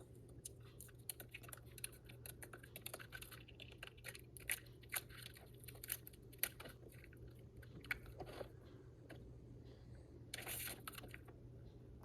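Faint handling of paper and cardstock during card-making: scattered light clicks and crackles, with a short rustle about ten and a half seconds in.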